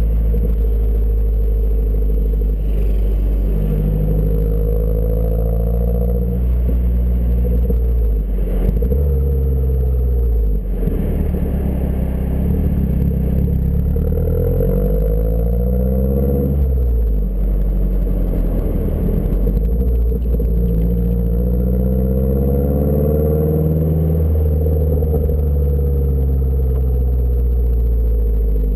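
2012 Mazdaspeed 3's turbocharged four-cylinder engine running through a CP-E turbo-back exhaust with a high-flow cat downpipe, with a deep steady drone. The engine pitch climbs and falls several times, dropping sharply about halfway through.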